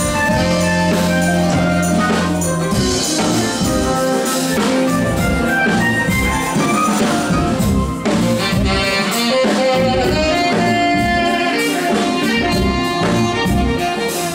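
A live band plays an instrumental passage with electric bass, keyboards, drums and percussion, and saxophones taking the melody.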